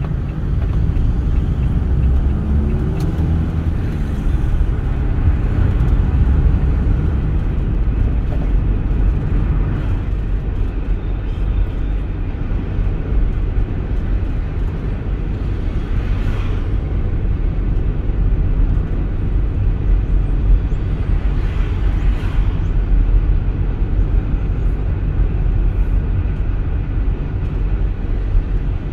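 Car driving along a road: steady engine and tyre rumble, with the engine note rising and falling a few seconds in and two brief swells of hiss later on.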